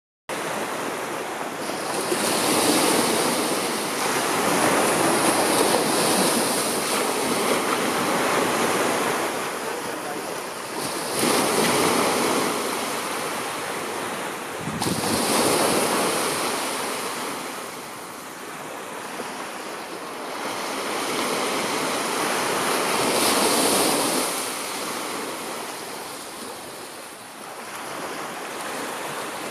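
Small waves breaking and washing in at the shoreline, the surf swelling and fading every few seconds.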